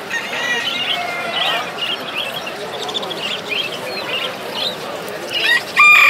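Many caged chicks cheeping, short high peeps overlapping, over the chatter of a crowd. Just before the end a rooster starts a loud crow.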